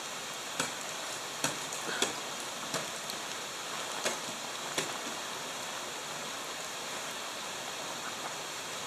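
Ice axes and crampons striking the frozen waterfall ice, about six sharp impacts spread over the first five seconds, over a steady hiss of water running under the ice.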